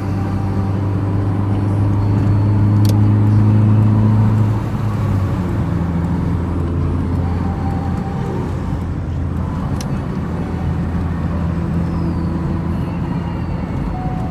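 Car engine heard from inside the cabin, running steadily under load, its note rising slightly then dropping and quietening about four and a half seconds in before running on evenly. Two brief clicks, one near three seconds and one near ten.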